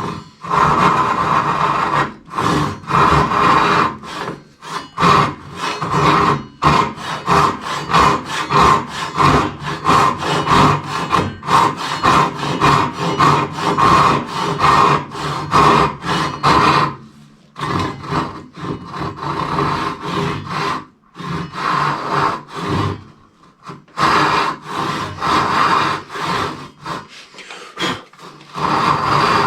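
Hand saw cutting through wood in quick back-and-forth strokes, about two to three a second. It stops briefly twice and then resumes, as when sawing a tenon by hand.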